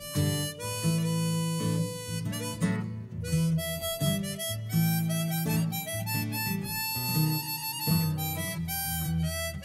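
Harmonica solo of held notes shifting in pitch, over acoustic guitar accompaniment.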